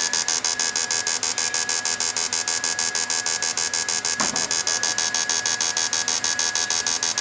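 Cricket V2 electrofishing inverter running in its cable-pulling pulse mode into a test load, giving a loud, rapidly and evenly pulsed high buzz with a thin steady whine underneath.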